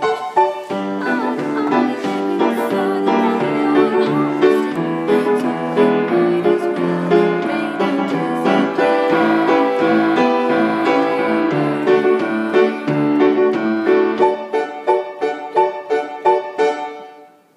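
Piano played with both hands, a continuous run of chords and melody. Near the end it breaks into short repeated notes, about two a second, then dies away.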